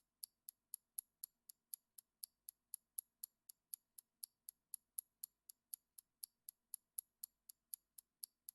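Countdown-timer ticking sound effect: quick, high, clock-like ticks about four a second, every fourth one a little louder, marking the seconds left to answer the question.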